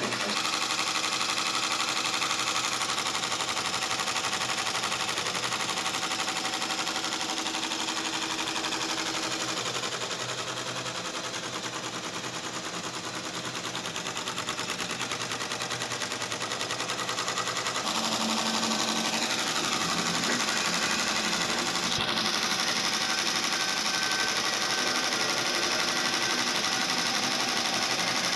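Multi-needle embroidery machine stitching at speed: a fast, even mechanical rattle of the needles.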